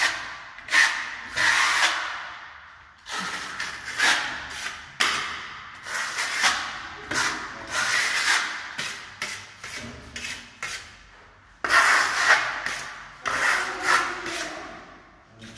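Metal trowel scraping thick decorative paint across a wall in repeated short strokes, one to two a second, with brief pauses between runs of strokes.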